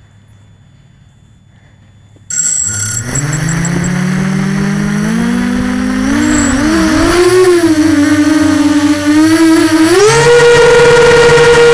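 Small camera drone's electric motors and propellers starting abruptly about two seconds in, the whine rising in pitch as they spin up, wavering, then jumping higher near the end and holding a loud steady whine as the drone climbs.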